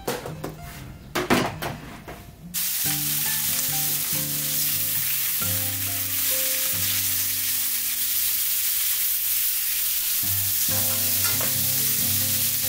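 Sliced pork sizzling steadily in a hot frying pan as it is stirred with chopsticks. The sizzle starts suddenly about two and a half seconds in, after a few light clicks.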